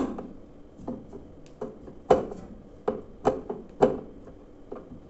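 Irregular sharp knocks and clicks of tools and metal parts while the screws on a washing machine's tub and bearing housing are tightened, about eight strikes at uneven spacing.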